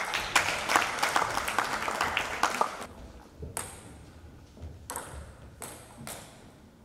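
Table tennis balls clicking off tables and bats in a sports hall: a quick flurry of clicks for the first three seconds, then single clicks spaced about a second apart.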